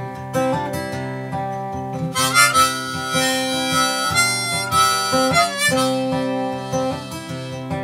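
Harmonica playing an instrumental fill with long held notes over acoustic guitar strumming; the harmonica is loudest in the middle of the phrase.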